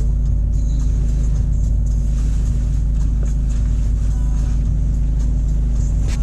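Car engine idling, a steady low hum with an even throb, heard from inside the cabin of the stationary car.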